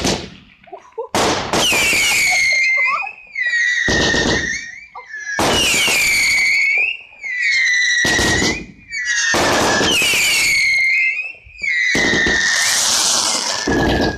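Whistling fireworks going off one after another: a sharp bang, then about six shrill whistles, each about two seconds long and falling in pitch, with noisy hiss and crackle beneath them.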